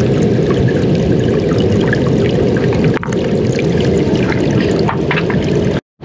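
Running water: a steady rush with small splashes and trickles throughout. It cuts off abruptly just before the end.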